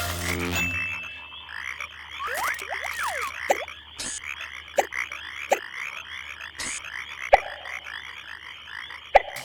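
Frogs croaking in a steady chorus, with a few gliding calls about two to three seconds in and about five sharp single pops standing out now and then.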